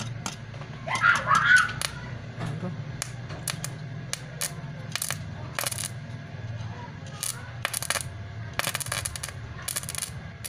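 Edon 450-watt stick (arc) welder humming while the electrode is struck against a steel bar, the arc catching in short crackling bursts that do not hold steady, with the densest crackling near the end. The owner says a 450-watt household supply is not strong enough for this welder and keeps tripping. A few high rising-and-falling chirps sound in the first two seconds.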